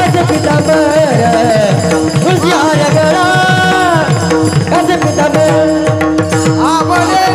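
Marathi devotional bhajan music: fast hand-drum strokes with low notes that slide downward several times a second, under held steady notes and a gliding melody.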